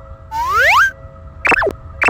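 Cartoon sound effects: one rising pitch glide of about half a second, then two quick falling chirps near the end, over faint steady held tones.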